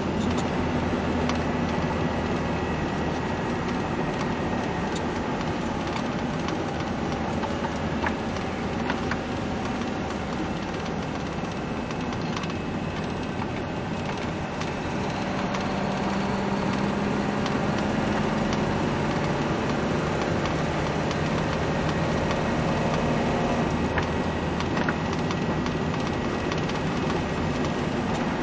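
Vehicle driving on a wet highway: steady engine and tyre noise, with the engine note shifting in pitch now and then and the occasional small click or creak.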